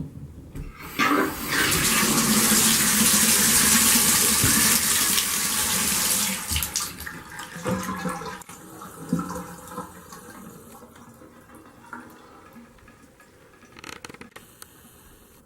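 Bathtub faucet turned on about a second in, water gushing hard for about five seconds, then dropping to a weaker, uneven flow that fades away.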